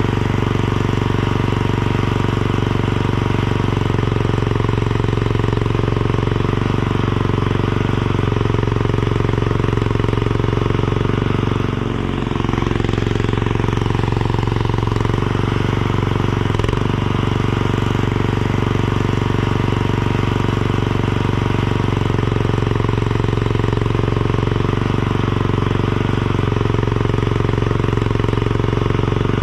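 Mini skid steer's engine running steadily, its pitch dipping briefly and recovering twice, about twelve and seventeen seconds in.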